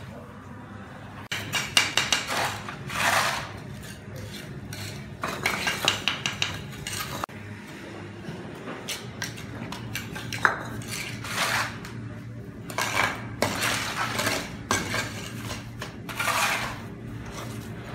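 Bricklayer's steel trowel scraping and tapping in mortar, and hollow clay bricks clinking as they are picked up and set in place, coming in clusters of sharp clicks and scrapes every few seconds.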